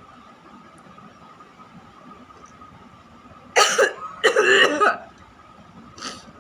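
A person coughing: quiet at first, then a short cough about three and a half seconds in, a longer, harsher one right after, and a faint one near the end.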